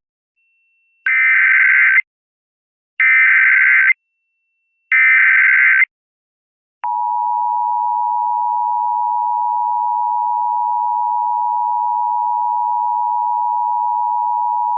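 Emergency Alert System SAME header: three one-second bursts of warbling digital data tones about a second apart, then a single steady alert tone lasting about eight seconds, which signals that an emergency message is about to follow.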